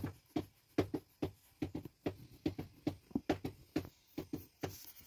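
A red pencil drawing short strokes on a sheet of paper laid on a table: a run of small, irregular taps and scratches, about three a second.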